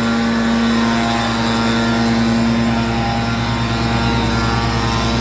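An engine running steadily and loudly, with an even, unchanging drone.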